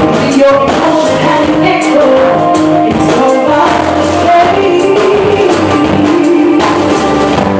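Live band music: a woman singing held, gliding notes into a microphone over keyboard and drums, with cymbal strokes.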